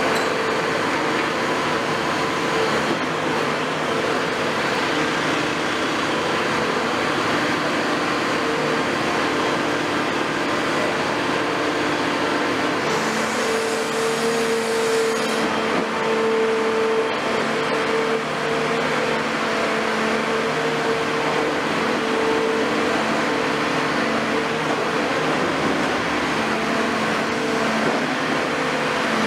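CAT 336F long-front demolition excavator with its Cat C9.3 diesel engine running steadily, with a steady whine over the engine noise. A hiss comes in for a couple of seconds about halfway through.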